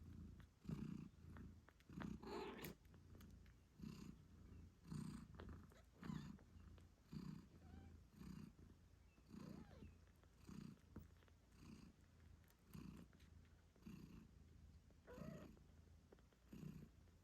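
British shorthair mother cat purring steadily, the purr swelling and fading with each breath, a little more than once a second, with a couple of brief higher calls.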